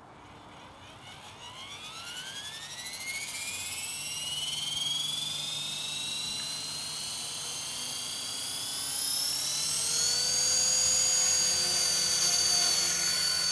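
Electric 450-size RC helicopter spooling up. Its motor and gear whine rises steadily in pitch and grows louder over about eight seconds, then holds steady at head speed.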